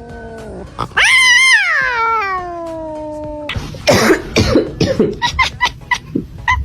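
A cat meowing: one long, drawn-out meow starting about a second in, wavering at first and then slowly falling in pitch. It is followed by a few short, harsh, breathy sounds.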